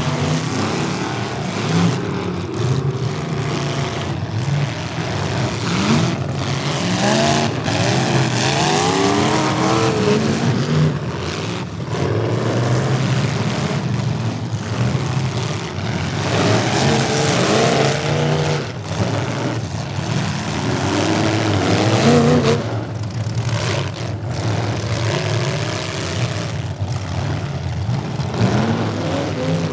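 Demolition derby car engines revving at once, their pitch rising and falling repeatedly as the cars accelerate and back off across the arena.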